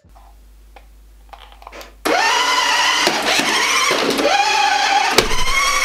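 Small electric drive motor and gears of a toy-grade 1:9 RC Mini Cooper whining, rising and falling in pitch in four spurts from about two seconds in as the throttle is worked. A few faint clicks come before it.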